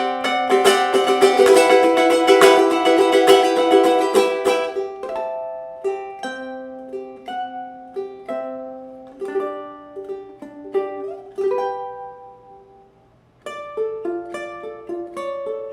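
Ohana tenor ukulele strung with D'Addario EJ88T Nyltech strings, played solo. It is strummed in dense chords for the first few seconds, then picked as single plucked notes that fade almost to nothing about thirteen seconds in. Picking starts again shortly after.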